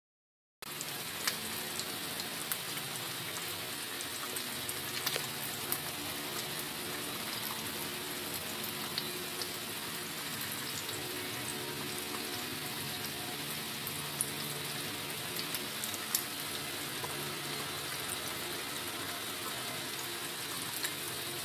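Eggs frying sunny-side up in hot oil in a ridged grill pan: a steady sizzle with scattered small pops and crackles. It begins abruptly about half a second in.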